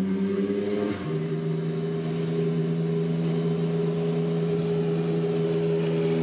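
Toyota Yaris rally car's engine running hard at high, steady revs as the car approaches on gravel, with one drop in pitch about a second in.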